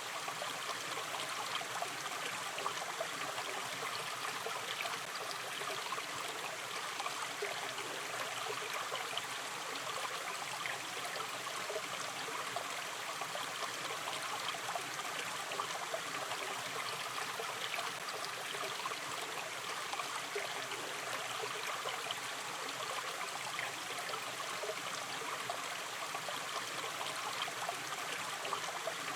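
Shallow river stream running steadily, an even rush of water with fine trickling and babbling detail.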